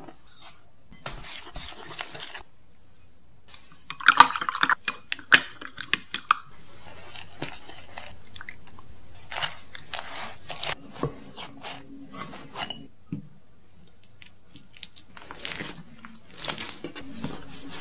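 Dry flour pouring into a glass bowl with a soft hiss. It is followed by a run of sharp clinks and scattered taps of chopsticks against the glass bowl as egg is stirred into the crumbly flour. Near the end comes the rustle of dough being pressed and kneaded by hand on a wooden board.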